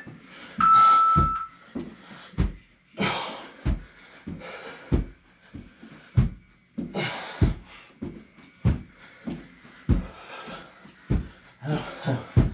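Feet thudding on the floor in a steady rhythm, about one landing every one and a quarter seconds, during squat thrusts, with heavy panting breaths between them.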